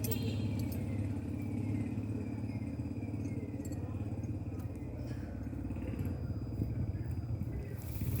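Motorcycle engine idling steadily, a low, even running hum.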